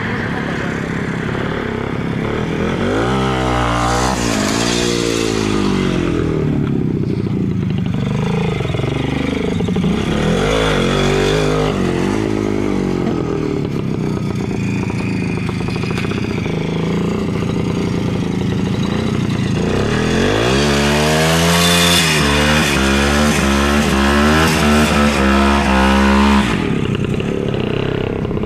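WSK 125 motorcycle's two-stroke single-cylinder engine revving hard as it is ridden close by, its pitch climbing and falling with each burst of throttle. The longest, highest-revving run comes about 20 seconds in and cuts off sharply about two seconds before the end.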